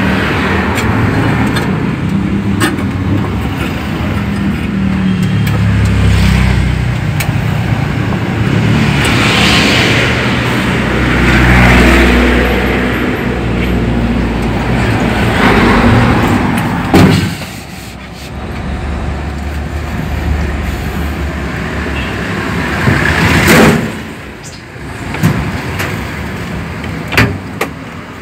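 Toyota 4K inline-four engine, fed by a motorcycle carburetor, running under load while the vehicle is driven at speed, heard from inside the cabin along with road and wind noise. Partway through the engine sound drops off, and a few sharp knocks follow in the second half.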